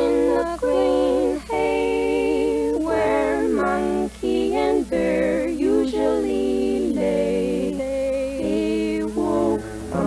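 A woman singing with vibrato in long held phrases, played back from cassette on a Walkman, with a steady low hum from the tape playback underneath.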